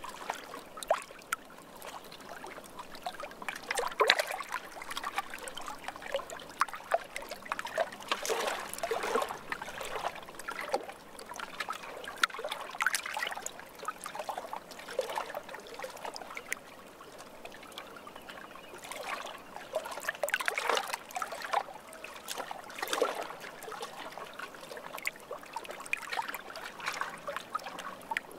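Water trickling and splashing gently in an irregular patter, with somewhat louder surges every few seconds.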